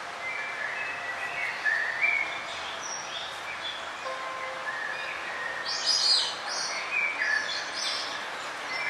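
Several forest birds chirping and singing at once, short overlapping calls and trills, the loudest burst about six seconds in, over a steady background hiss.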